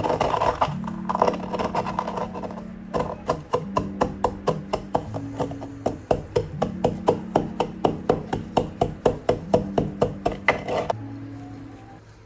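Kitchen knife chopping on a wooden cutting board: a quick clatter of cuts, then a run of steady, even chops about four a second that stops abruptly near the end, over soft background music.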